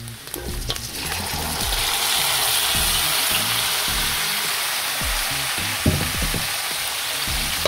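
Diced, boiled pork belly tipped into hot oil and browned garlic in a steel wok, setting off a sizzle that swells about a second in and then holds steady. A metal spatula knocks and scrapes against the wok a few times about six seconds in.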